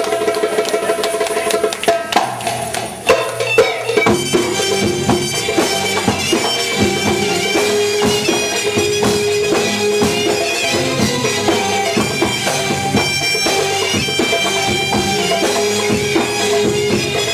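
Live band playing Egyptian belly-dance music: a held melody line over a steady drum rhythm, with a run of sharp drum hits about two to four seconds in as the piece changes section.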